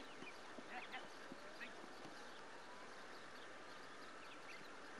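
Faint open-air ambience over steady camcorder hiss: distant voices from the football pitch and scattered short, high chirps.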